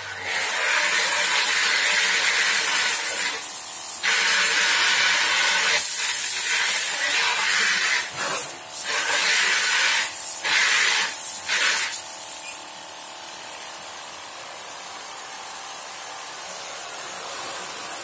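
Water spraying from a hose nozzle, a loud hiss that cuts in and out about five times over the first twelve seconds and then settles into a softer, steady hiss. A faint steady hum runs underneath.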